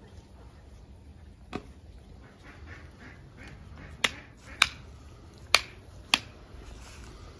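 Sharp knocks or clicks: one about a second and a half in, then four louder ones in quick, uneven succession a little past the middle.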